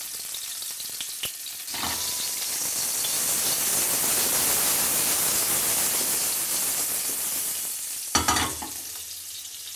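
Small whole red onions sizzling in a thin film of olive oil in a frying pan over high heat. The sizzle swells after about two seconds and eases toward the end, with a brief knock near the end.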